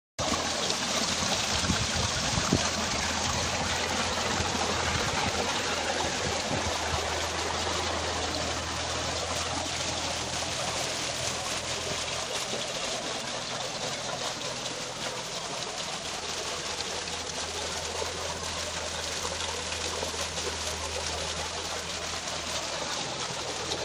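Water pumped by a solar-powered submersible tube well pouring from the discharge pipe and splashing into a concrete tank: a steady, continuous rushing splash.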